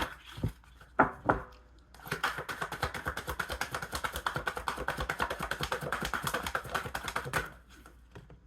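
Tarot cards being shuffled: a few single card snaps, then a dense run of rapid card clicks lasting about five seconds.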